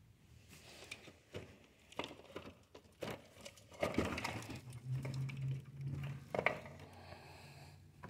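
Dried mud caked on a car's underside crunching and crackling irregularly as a hand breaks clumps of it loose. A low steady hum comes in about halfway through.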